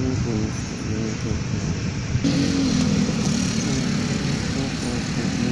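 A bird calling in hollow, pitched notes likened to the sound of an angklung, over a steady rumbling background.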